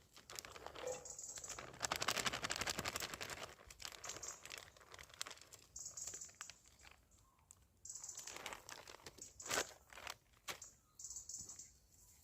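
Plastic food packet crinkling and rustling as it is handled and opened, with a dense run of crackling about two seconds in and scattered sharper crackles later.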